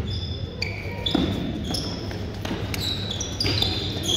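A basketball being dribbled on a gym court during a game, with many short, high squeaks scattered through it.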